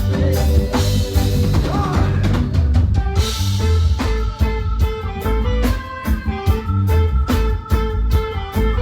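Live band playing reggae music: drum kit, heavy bass and electric guitar in a steady groove.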